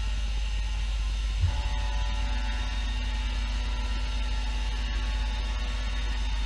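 YASDA YBM-700 5-axis machining centre running under power: a steady low hum with several even whining tones above it. About a second and a half in there is a short thump and the pitch of the whine shifts.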